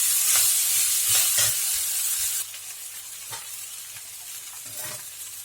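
Cooked rice being stirred into sizzling ghee in a frying pan, with a few spatula strokes against the pan. The loud sizzle drops off suddenly about two seconds in, leaving a fainter sizzle and occasional scrapes.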